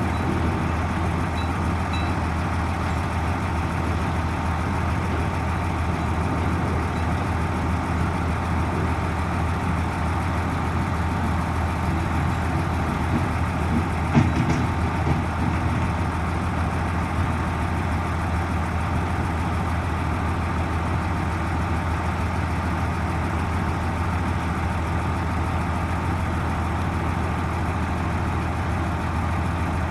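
Heavy diesel engine of earthmoving equipment running steadily with a low hum, with a single short knock about halfway through.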